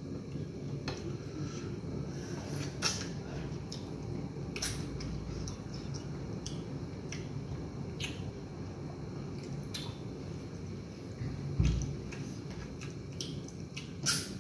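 Eating sounds of people eating egusi soup with fufu: scattered short, wet mouth clicks and smacks over a steady low hum, with a dull thump a little before twelve seconds in.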